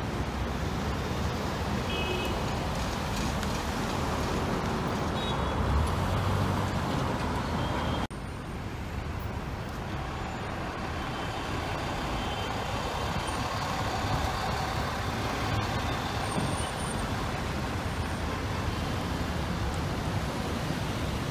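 City street traffic: a steady rumble of car and truck engines and tyres passing. The sound breaks off for an instant about eight seconds in, then carries on.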